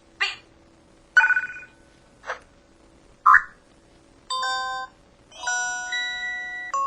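PH-S3500 mobile phone playing its built-in effect sounds one after another: four short electronic blips and chirps, then two electronic chimes of several steady tones, the second about a second and a half long.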